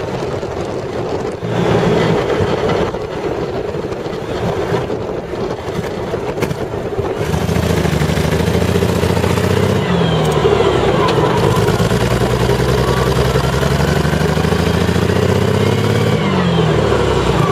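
Jaguar J60 straight-six petrol engine of a CVR(T) Striker running with a bad misfire, caused by a stuck valve. It gets louder about seven seconds in, and its pitch dips and rises again as it is revved.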